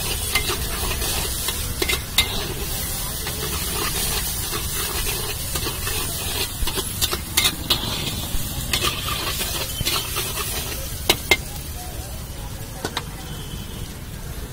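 Diced potatoes and peanuts sizzling in oil in a large iron kadhai while a flat metal spatula stirs them, scraping and clicking sharply against the pan. The sizzle eases off near the end.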